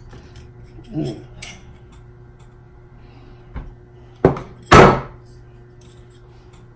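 Two heavy thumps about half a second apart, the second the loudest and lasting about a quarter of a second, from things being handled and set down at the table, with a smaller knock just before them.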